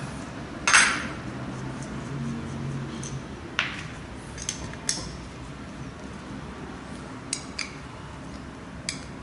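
Metal hand tools clinking and knocking against a scooter's front brake master cylinder as it is taken apart: one loud clank about a second in, then a handful of lighter clinks spread through the rest.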